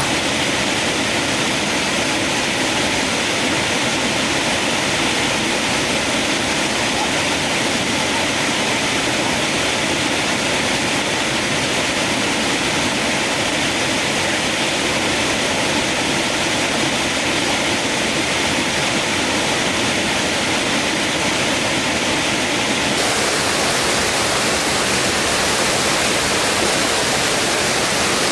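Steady rush of a waterfall or fast mountain stream, with no breaks. About 23 seconds in it abruptly turns brighter and hissier.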